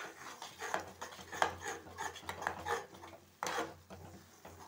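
Flat spatula scraping and stirring a thick spice paste in a non-stick kadai, an irregular run of short rasping scrapes against the pan as the masala is roasted.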